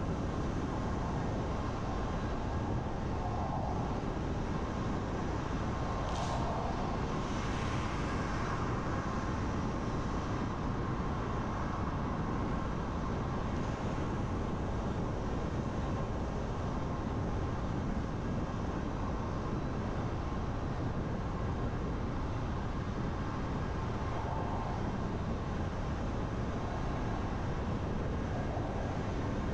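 Steady road noise of a car driving on a wet road in heavy rain: a continuous tyre-on-water hiss with a faint steady hum underneath. A brief louder swish rises and fades about six seconds in.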